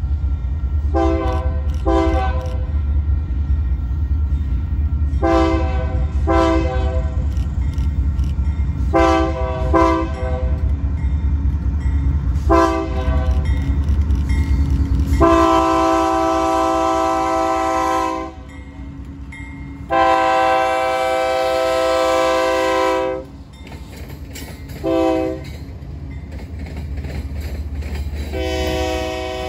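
Union Pacific freight train's diesel locomotive horn over the low rumble of the locomotive. First come several pairs of short toots and a single short one, then the long-long-short-long pattern that warns of a grade crossing, the last long blast still sounding at the end. The engine rumble eases off about halfway through.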